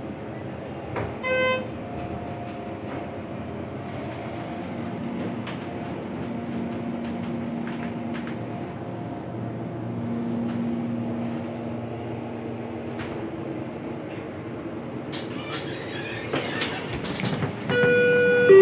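Elevator ride in a Dover elevator modernized by Schindler. A short electronic beep sounds about a second in, then the car hums steadily as it travels. Clunks and clicks near the end come as it stops, and an arrival chime sounds just before the end.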